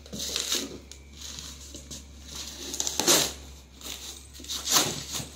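Folded inflatable boat's stiff fabric crinkling and rustling against a cardboard box as it is lifted and dragged out, in several noisy bursts, the loudest about three seconds in and again near the end.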